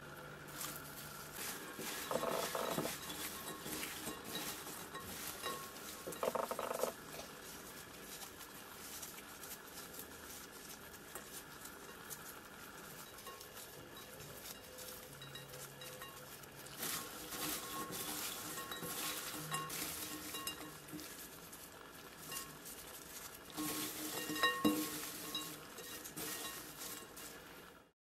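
Gloved hands tossing ramen-seasoning-coated jjondeugi snack strips in a glass bowl: a steady rustling and crackling of gloves and chewy strips, with light taps on the glass, louder in several short spells.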